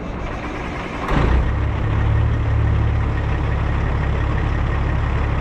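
Heavy semi-truck diesel engine running, a deep steady rumble that gets louder about a second in.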